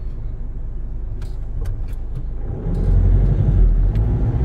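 Cabin sound of a Nissan NV350 van on the move: diesel engine and road rumble, stepping up and growing louder about two-thirds of the way through, with a few faint clicks.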